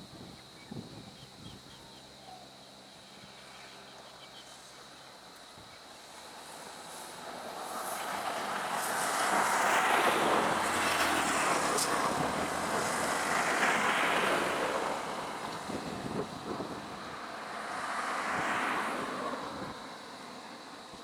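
Road vehicles driving past, their engine and tyre noise swelling up and fading away three times.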